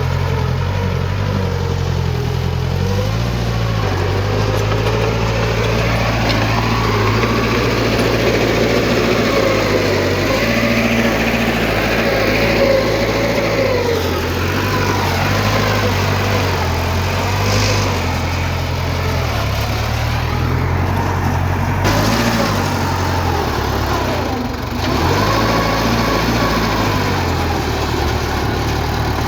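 Diesel engines of heavy earthmoving machinery running continuously, the pitch rising and falling as they work, with a brief dip in level about 24 seconds in.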